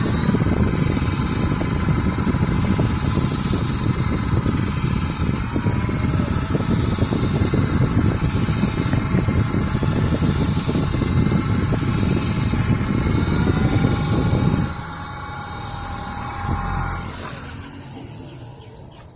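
Toy remote-control helicopter's small electric motors whining steadily in flight, the pitch dipping and rising a little as the throttle changes, under a heavy low rushing noise on the microphone. The rushing stops suddenly about three-quarters of the way through, and the whine dies away a few seconds later as the motors spin down.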